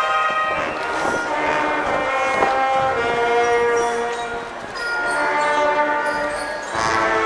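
Procession brass band playing a slow march in long held chords, the notes changing every second or two.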